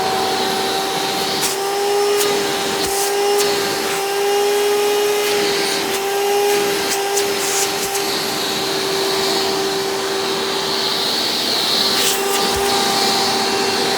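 A 1995 Hoover Encore Supreme U5059-930 upright vacuum running steadily in tool mode through its hose, with an even motor whine. A few short knocks sound over it.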